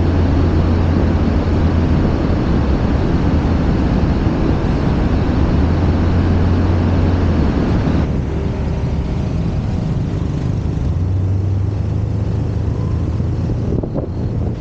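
Motor scooter riding along a city street: wind rushing over the microphone over the low hum of the scooter's engine and the tyres on the road. The rush drops a little about eight seconds in.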